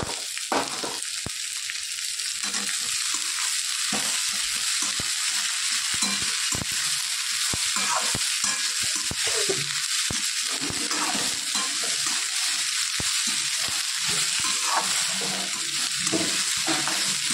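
Chopped okra sizzling in hot oil in a metal kadai, with a spatula repeatedly clicking and scraping against the pan as it is stirred.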